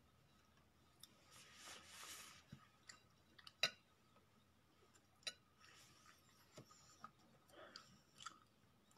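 Near silence: room tone with a few faint sharp clicks, the clearest a little past three and a half seconds in, and a brief soft hiss early on.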